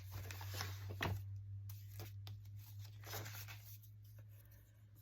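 Paper being torn and peeled by hand, in two scratchy stretches, one at the start and one about three seconds in, with small clicks and rustles between. It is backing paper that is hard to get off.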